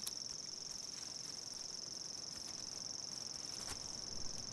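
Insects trilling: one faint, steady, high-pitched trill, with a couple of soft clicks near the end.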